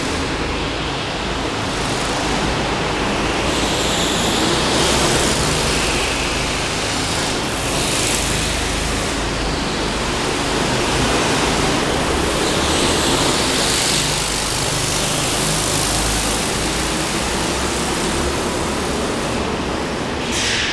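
Go-kart engines running on an indoor track in a large, echoing hall, blending into a steady din that swells a few times as karts pass closer.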